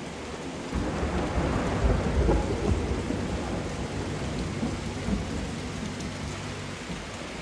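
Steady rain with a long roll of thunder that rumbles up about a second in and is loudest around two seconds in, then slowly dies away.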